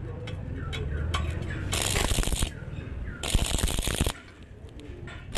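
Stick-welding arc crackling in two short bursts, each under a second, as rod is laid in brief stitches on thin square tube; light ticks and a low hum between them.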